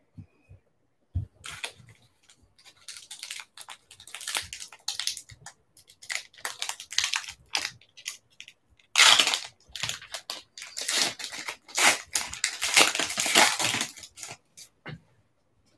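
Plastic trading-card pack wrapper crinkling and being torn open by hand: a run of crackling rustles, loudest about nine seconds in and again over the last few seconds.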